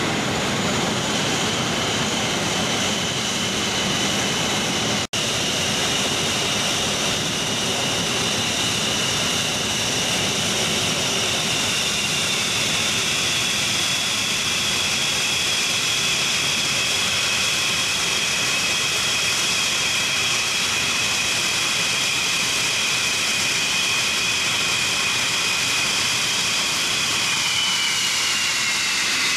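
English Electric Lightning's Rolls-Royce Avon turbojets running on the ground at idle: a steady loud roar with a high whine, which dips in pitch near the end. A momentary dropout about five seconds in.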